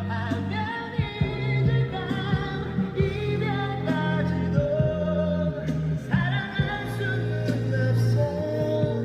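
A pop song with a singer over a band, played back from a phone through a 6K4 tube preamp and a vintage Trio 320 tube receiver into JBL Control 25 speakers.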